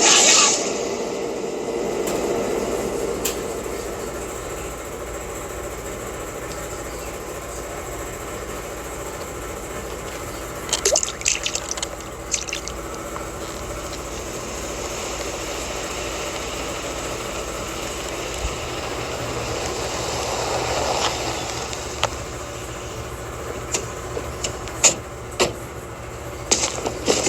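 Liquid pouring and dripping in a steady wash, with clusters of sharp wet clicks about eleven seconds in and again near the end.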